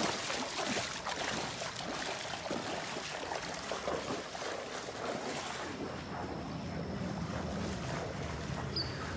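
Floodwater splashing and sloshing as people wade through it knee-deep, a continuous run of irregular splashes.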